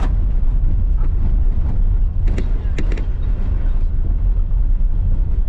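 Tour vehicle driving along a gravel farm track: a steady low rumble of the running vehicle, with a couple of sharp knocks or rattles about two and a half seconds in.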